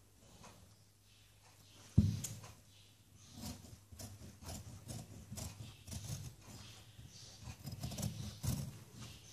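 Scissors snipping through cloth in a run of short, irregular cuts, with rustling of the fabric. A single sharp thump about two seconds in is the loudest sound.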